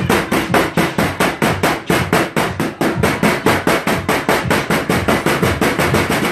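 Metal meat tenderizer pounding graham crackers in a plastic bag on a stainless steel counter, crushing them into crumbs: rapid, even strikes, about six a second.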